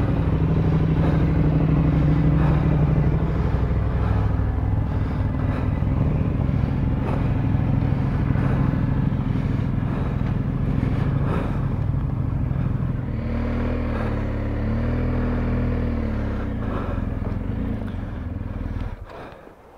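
Motorcycle engine running steadily at road speed. Its pitch dips and rises a few times about two-thirds of the way through, and the sound drops away just before the end.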